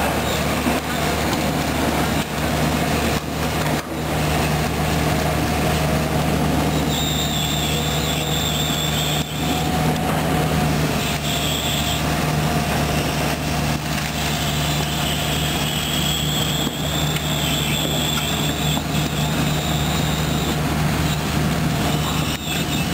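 Sany SR150C hydraulic rotary piling rig's diesel engine running steadily with a low hum. From about a quarter of the way in, a high thin squeal from the machine comes and goes.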